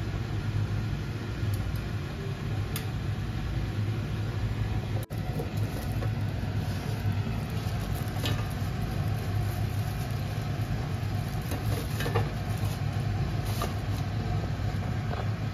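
Steady low rumble of a gas burner on high flame under a pot of boiling water, steaming a foil-wrapped leg of mutton. A few sharp clinks of tongs and a spatula against the aluminium pot as the foil parcel is lifted and turned over.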